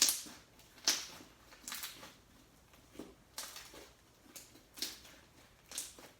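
Slime being squeezed and kneaded by hand, giving a run of wet squelching and crackling pops about once a second.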